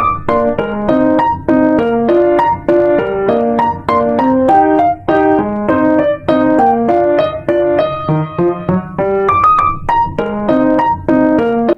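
Piano music: a quick run of notes, several a second, each struck and fading.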